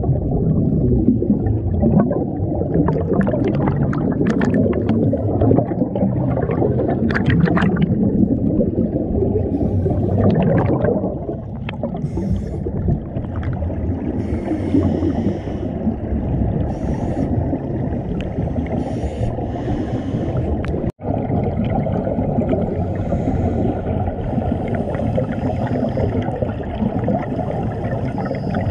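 Underwater sound of scuba divers breathing through their regulators: exhaled bubbles rush and gurgle past the camera over a constant low rumble of water. The bubble bursts are busiest for the first ten seconds or so and then thin out, and the sound cuts out for an instant about two-thirds of the way through.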